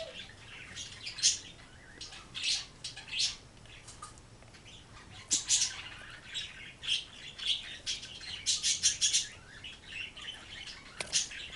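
Short, high-pitched chirps at irregular intervals, some in quick runs of four or five, over a quiet room.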